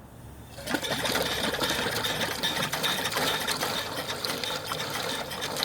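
Wagener steam boiler pump starting up on steam under a second in, then running with a rapid, steady mechanical clatter over a hiss.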